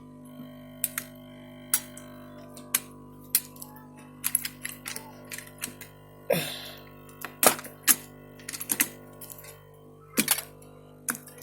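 Irregular sharp clicks and taps of small hard parts being handled on a desktop motherboard during a processor swap, some coming in quick clusters, over a steady hum.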